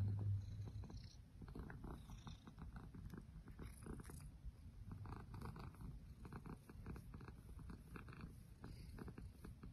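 Domestic cat purring steadily while being stroked on the head, a rapid low rumble that is loudest in the first second.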